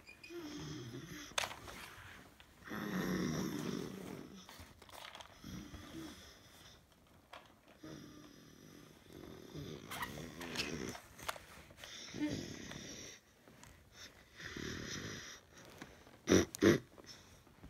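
Irregular short bursts of breathy, rasping vocal sound, about a second each, with two sharp knocks near the end.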